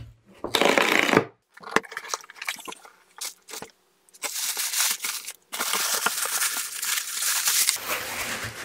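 A cardboard box being opened, then tissue paper crinkling and rustling as it is folded back. There is a short burst near the start, scattered crackles, then a long stretch of dense rustling from about four seconds in to near the end.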